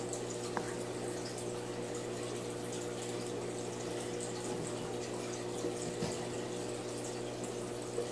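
Water sloshing and dripping faintly in a plastic bin as a female blue tilapia is dunked in and out by hand to flush the eggs from her mouth, with a few small splashes. A steady low electrical hum runs underneath.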